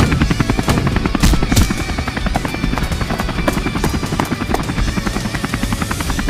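Helicopter rotor sound effect, a rapid chopping, laid over background music.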